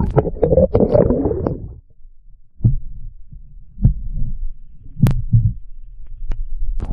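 Muffled sound picked up underwater by a submerged camera: a dull rumble for the first couple of seconds, then a few scattered low thumps and two sharp clicks.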